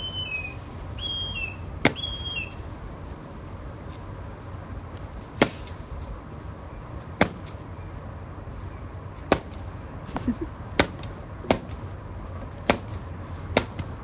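Secretary bird stamping at a snake on bare dirt: about nine sharp, separate strikes at uneven gaps, coming faster near the end. A few short, high falling chirps from a bird come in the first two seconds.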